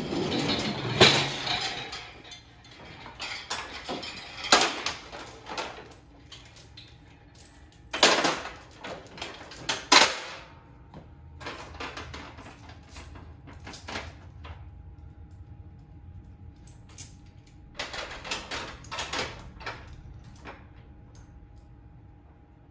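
Irregular metal clanks, rattles and scrapes in several bursts, from a jack being set in place and worked to lift a zero-turn mower.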